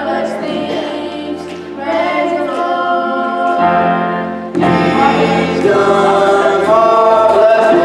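Small youth gospel choir singing in harmony, holding long chords, growing louder just past halfway.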